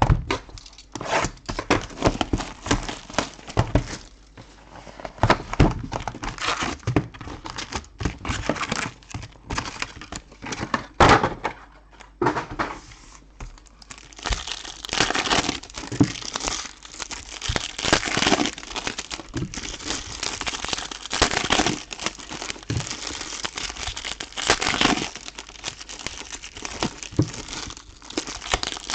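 Trading-card packaging being opened by hand: irregular crinkling and tearing of the box wrap and the card packs' wrappers, getting busier from about halfway.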